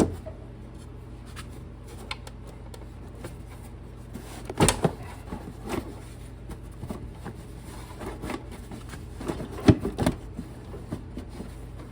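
Scattered knocks and clunks as a hydraulic oil tank is worked into place in a garden tractor, with the loudest knocks about five and ten seconds in, over a faint steady hum.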